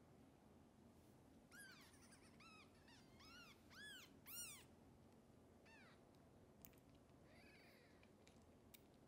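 Newborn kitten mewing: a quick run of about eight short, high-pitched mews that rise and fall, the loudest in the middle, then two more spaced out.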